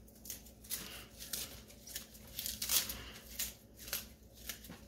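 Curly kale leaves torn off their stems by hand: a string of short, crisp rips and leafy rustles, irregular, about two a second.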